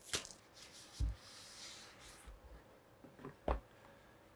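Clear plastic wrap being pulled off a cardboard product box, with a faint crinkling rustle and a few light knocks as the box is handled.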